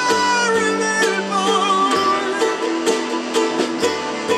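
A small live band playing: strummed ukulele and electric guitars over hand drums and a low bass note that changes about every two seconds, with a melody line that slides in pitch near the start.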